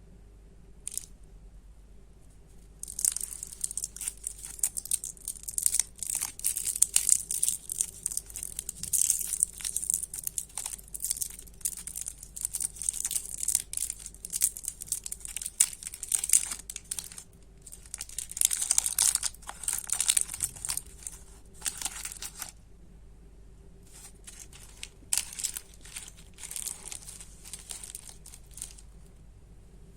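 Candy wrappers being torn open and crinkled by hand: a dense run of crackling from about three seconds in until about two-thirds through, then scattered crinkles near the end.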